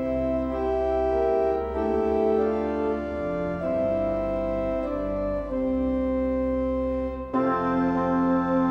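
Organ playing slow, sustained full chords, moving to a new chord every second or two.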